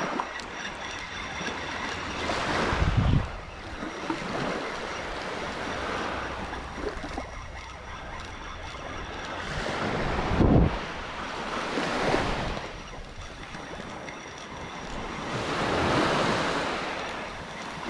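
Small waves breaking and washing up the sand at the water's edge, swelling and falling every few seconds. Wind gusts buffet the microphone twice.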